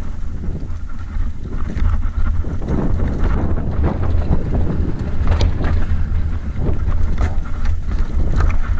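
Wind buffeting a bike-mounted camera's microphone with a constant low rumble, over the rattle of a mountain bike rolling downhill on a rocky dirt trail: tyres crunching over loose stones and the bike clattering in scattered sharp knocks.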